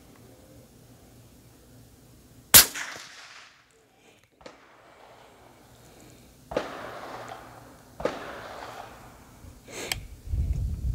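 A single rifle shot from an Accuracy International AXSA bolt-action rifle in .308 Winchester with a 30-inch barrel, a sharp, loud report with a short fading tail. Three fainter sharp sounds follow a few seconds apart.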